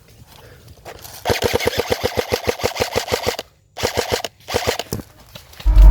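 Airsoft gun firing on full auto: a rapid, even run of sharp cracks, about a dozen a second for some two seconds, then two short bursts. A loud low rumble starts near the end.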